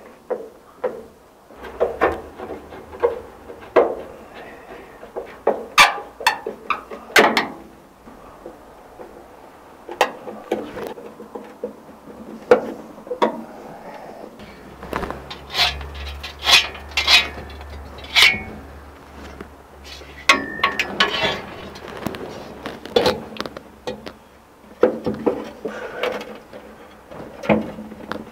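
Irregular clicks, knocks and scrapes of a screwdriver and hands working the windshield's metal centre bar and screws inside a truck cab, with a low hum coming and going underneath.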